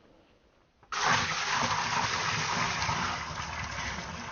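Water pouring into a sump pit, starting suddenly about a second in as a loud splashing rush that slowly eases. The pit is being filled above the float level while the pump is unplugged, to prime it.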